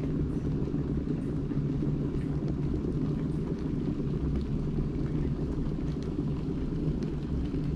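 Electric kettle heating close to the boil, a steady low rumble.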